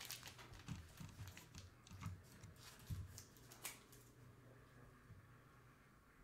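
Near silence: room tone with a few faint, scattered light clicks and taps over the first four seconds.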